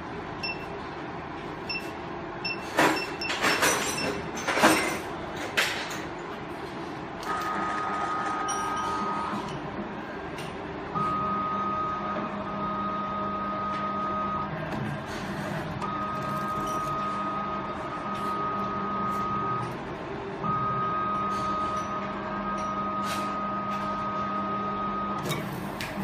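Automatic cable stripping machine at work: a few loud clacks near the start, then its rotary stripping head runs in repeated spells of a few seconds each with short pauses between. Each spell is a steady high whine over a low hum.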